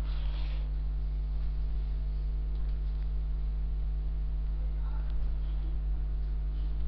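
Steady low electrical mains hum picked up by the recording microphone, one unchanging tone with higher overtones.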